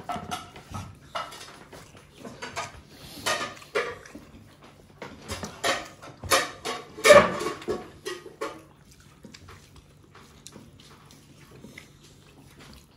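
Serving spoons and plates clinking and knocking as food is dished out, a string of short clatters that thins out after about eight seconds. A brief pitched sound stands out about seven seconds in.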